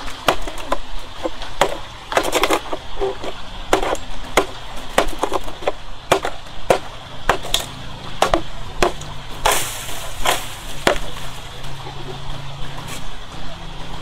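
A bamboo pole jabbed again and again into a dry earth bank, digging into a hole: irregular knocks and thuds, the loudest few about ten seconds in.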